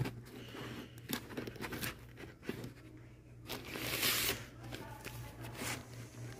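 Comic books being flipped through and shifted in a box: a rustle with soft clicks and scrapes, and a louder rustle about four seconds in.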